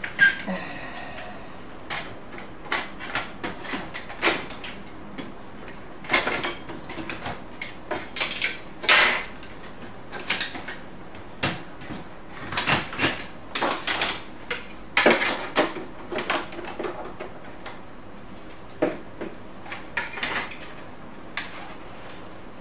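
Irregular clicks, knocks and a few longer scrapes of parts being handled and fitted in an HP LaserJet P3005 laser printer during reassembly.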